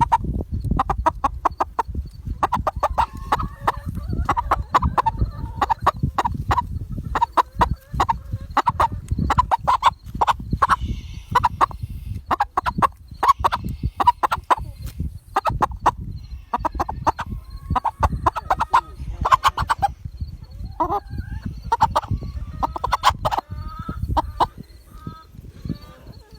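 Chickens clucking and squawking in quick, repeated calls, with many sharp clicks and a low rumble running under them.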